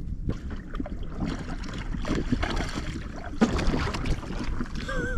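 Sea water lapping and slapping against the hull of a sit-on-top fishing kayak, with irregular small knocks and wind rumbling on the microphone.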